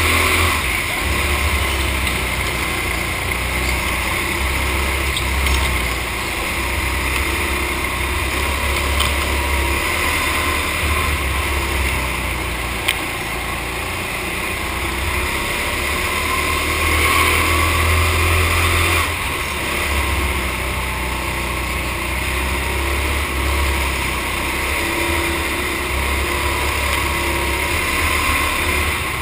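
Racing go-kart running at speed on a lap, its drive note swelling and easing a few times with throttle, with a steady low rumble.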